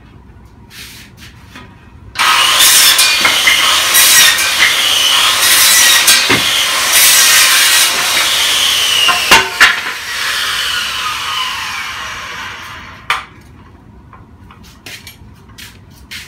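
Makita 5007MGA 7-1/4 in. corded circular saw starting up suddenly and cutting through a wooden board for about seven seconds, with a couple of sharp knocks as the cut ends. The motor then runs down, its pitch falling until it stops.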